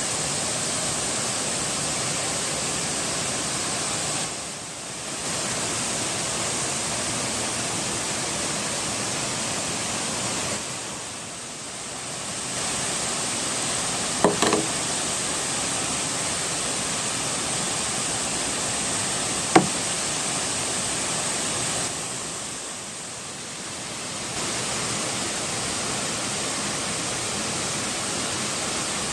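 Waterfall rushing with a steady, even noise that drops quieter three times for a second or two. There are two short, sharp clicks or knocks about halfway through.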